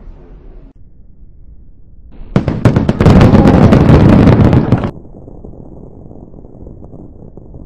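Firework shell bursting about two seconds in, followed by a loud, dense crackle of many small reports that stops abruptly about five seconds in, leaving a fainter low crackling rumble.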